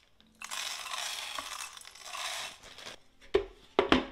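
Dried popcorn kernels poured from a metal measuring cup onto the oiled plate of an electric popcorn maker, a dense rattle lasting about two seconds. A few sharp knocks and clicks follow near the end as the clear plastic dome lid is set on.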